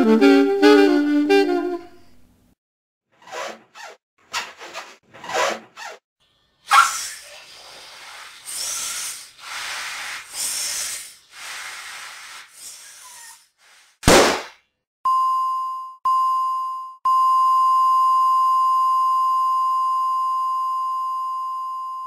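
The song's last held chord on wind instruments fades out about two seconds in. A string of short noisy swishes and hits follows, with a loud sharp hit about fourteen seconds in. Then three ringing tones of the same pitch sound, two short and the last long and slowly dying away.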